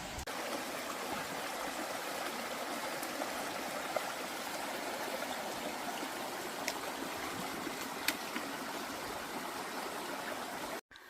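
A forest stream flowing over rocks: a steady rush of running water that cuts off suddenly near the end.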